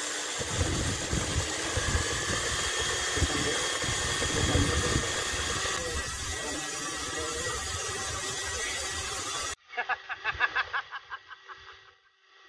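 Cordless drill with a paddle running steadily, stirring a liquid hydrolock concrete sealer in a plastic jug, with wind gusting on the microphone. It cuts off suddenly near the end and is followed by a short laugh.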